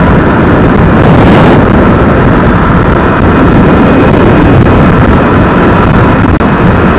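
Loud steady wind rumble on the microphone of a riding motorbike, with the bike's engine and road noise running underneath.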